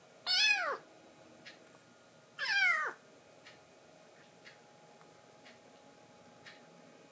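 Kitten meowing twice, two short calls about two seconds apart, each sliding down in pitch at the end.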